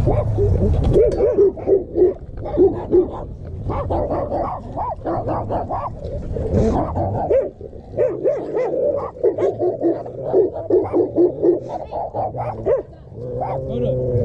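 Dogs barking, yipping and whining in quick runs of short calls, with brief pauses near the middle and near the end.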